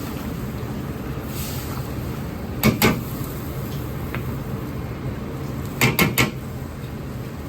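Metal cookware clanking in a commercial Chinese kitchen: two sharp clanks close together about a third of the way in and three more just past the middle, over the steady noise of the kitchen's burners and ventilation.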